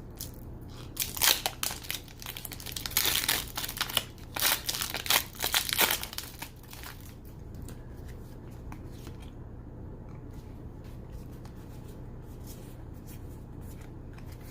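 Foil booster-pack wrapper crinkling and tearing as it is ripped open, in a run of crackly bursts over the first six seconds or so; after that only a steady low hum.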